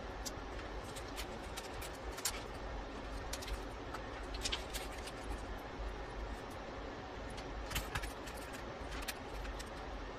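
A few sharp clicks and light scrapes of broken back-glass pieces and a metal pry tool against an iPhone XR's frame, over a steady background hum.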